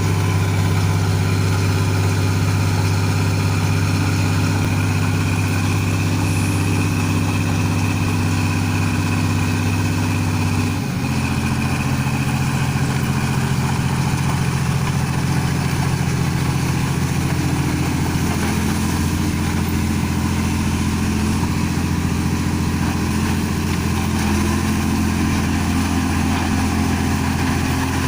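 Engine of a rice harvesting machine running steadily. About eleven seconds in, its tone changes abruptly, then it holds steady again.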